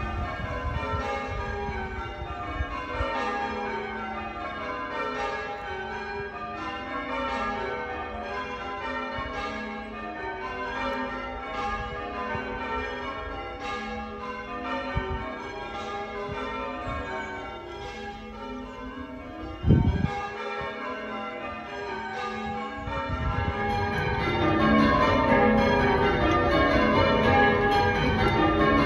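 Church tower bells rung full-circle in change ringing, a steady run of strikes stepping down and back up in pitch as the rows change. A brief low thump sounds about 20 seconds in, and the bells grow louder about 24 seconds in.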